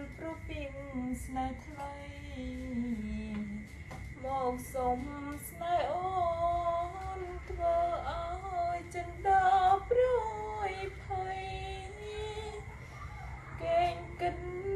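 A woman singing a slow melody, holding long notes that glide between pitches.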